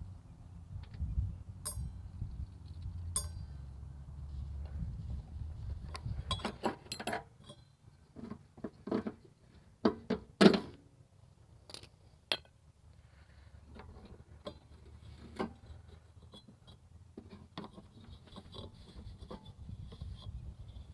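Metal tools and mower-deck parts clinking and knocking as a pulley is taken off, irregular clicks and clanks with one louder clank about halfway through.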